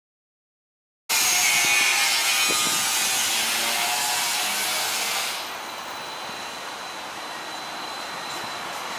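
Streetcar wheels running round a curve in the track, a rough, hissing grind of steel on rail. It starts abruptly about a second in, then drops to a steadier, quieter rumble about halfway through.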